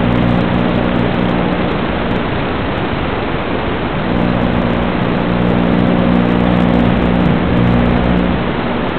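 Steady static hiss from an analog FPV video receiver's audio channel, with a low, even buzz over it that drops out about two seconds in, comes back about four seconds in, and stops shortly before the end.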